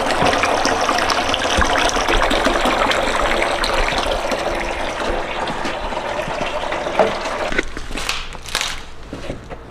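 Water gushing into a homemade hog waterer as it is filled for a leak test; the flow stops abruptly about seven and a half seconds in, followed by a few light clicks.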